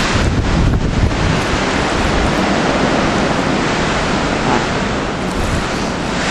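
Blizzard wind blowing hard, with wind buffeting the microphone in a loud, steady rush and low rumble.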